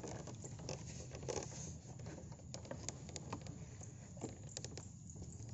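Light water patter with small irregular splashes and faint ticks, as fish jump and flap at the surface inside a traditional lift net in floodwater.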